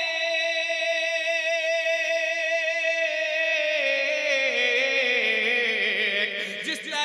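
A man singing an Urdu manqabat, holding one long note with a slight waver, then sliding it down in pitch over the last three seconds before breaking off near the end.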